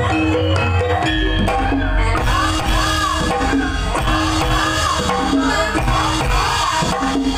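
Javanese gamelan playing, its metallophones ringing a repeated melody, with a female sinden singing long swooping lines through the PA microphone. A deep low drum beat comes in about a second in.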